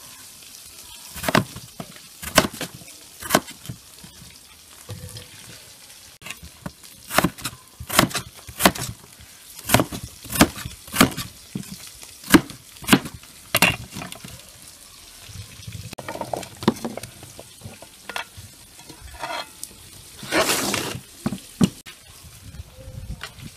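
Crinkle-cut knife slicing through raw peeled potatoes and knocking on a wooden cutting board, in sharp separate chops about once a second. Near the end there is a longer rustling clatter.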